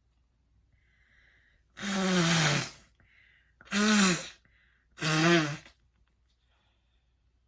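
A woman sneezing three times in quick succession, the first sneeze the longest, with a short breath in before each. The sneezes are set off by snuffed Chhikni sneezing powder.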